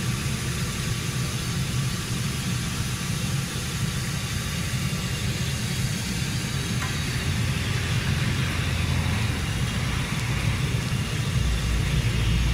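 Fish deep-frying in a large wok of hot oil, a steady sizzle over a low rumble that grows louder near the end.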